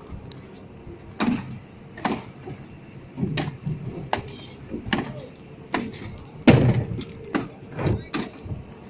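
Irregular hard knocks and thumps, roughly one a second, from plastic fish crates being set down, dropped and stacked on a wooden boat deck and the jetty while the catch is unloaded. The loudest knock comes about six and a half seconds in.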